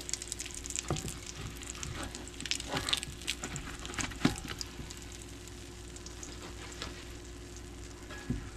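Fried cherry hand pies in vegetable oil in a cast-iron skillet, the oil sizzling and crackling steadily. A few sharp taps of a spatula against the pan as the pies are turned and lifted.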